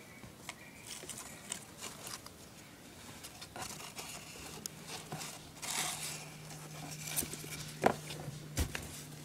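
Light scratching, rustling and scattered clicks as a hamster moves about a cardboard playpen and a plastic hamster wheel is handled, with one sharper click near the end. A faint steady hum comes in about a third of the way through.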